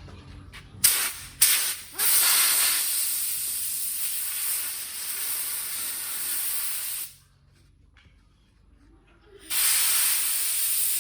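Compressed air from an air compressor's blow gun hissing as it blows dust out of a lawnmower air filter. There are two short blasts, a long blast of about five seconds, a pause of about two seconds, then another long blast near the end.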